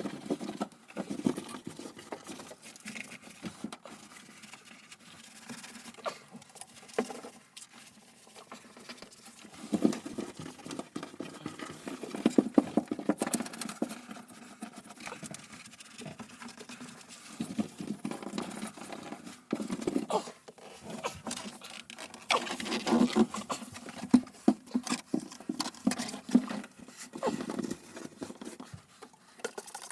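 Irregular tapping, scraping and rustling of hand work, coming in uneven bursts with quieter stretches between.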